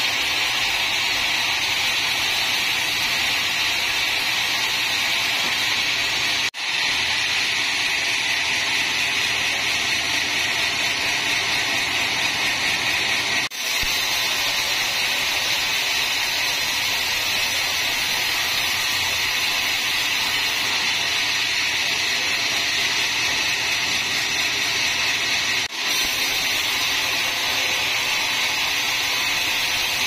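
Vertical band saw in a sawmill cutting lengthwise through a teak log: a steady, high hiss from the blade in the wood over the machine's running. It drops out briefly three times.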